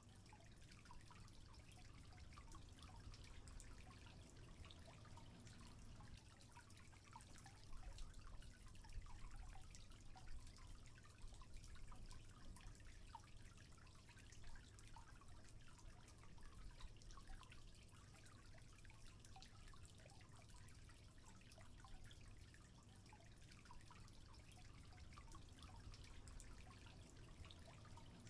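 Faint trickling water, with many small drips ticking over a low, steady rumble.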